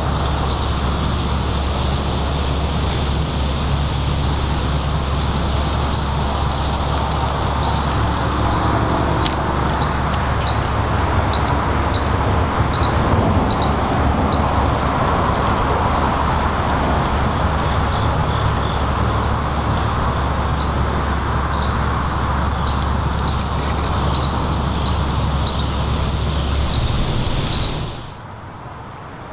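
Evening woodland insect chorus: high chirps repeating at about two a second over a continuous high-pitched insect drone, with a steady low hum and background rush beneath. Near the end the whole sound drops sharply in level.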